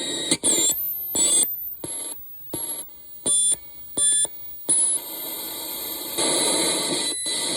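Experimental electronic sound machine putting out choppy, stop-start bursts of high beeping tones and noise, with a short falling glide near the start. About five seconds in it settles into a steady hiss with thin high tones over it.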